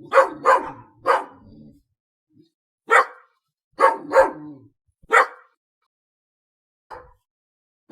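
A dog barking: about seven short barks, some in quick pairs, with pauses of a second or so between groups, and a faint bark near the end.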